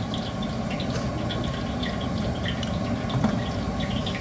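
Steady hiss of a gas burner, with scattered small crackles and pops from oil heating in a kadhai.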